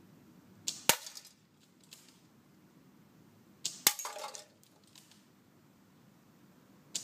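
Spring-powered bolt-action airsoft rifle firing twice, about three seconds apart. Each shot is a sharp crack followed by a short rattle, and a third shot starts at the very end.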